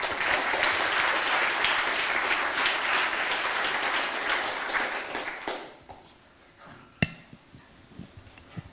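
Audience applauding, dying away after about five and a half seconds. A single sharp knock follows about a second and a half later.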